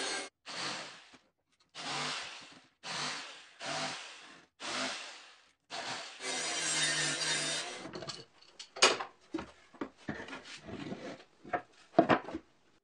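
Circular saw mounted under a table as an improvised table saw, cutting plywood in a series of short bursts about a second long with silent gaps between them. In the second half, sharp wooden knocks and clacks as cut pieces are handled and set down on the table.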